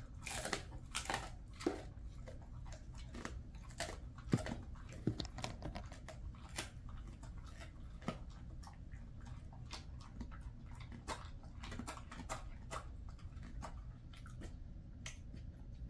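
A Jindo dog crunching and chewing a dried chicken foot treat: irregular sharp crunches, thickest in the first several seconds and then sparser.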